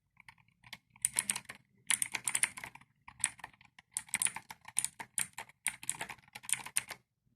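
Typing on an Inter-Tech Nitrox NK-2000ME mechanical keyboard with clicky blue switches: rapid runs of sharp key clicks in bursts with short pauses, starting about a second in and stopping shortly before the end.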